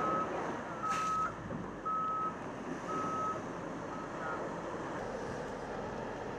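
Vehicle back-up alarm beeping one steady high tone about once a second, fading out after about four seconds, over a steady rush of surf.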